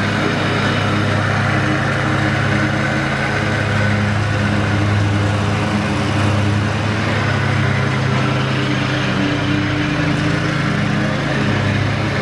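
Bad Boy 60-inch zero-turn mower's Kawasaki 26 hp gas engine running steadily as the mower drives and cuts grass, with a faint higher whine above the engine note.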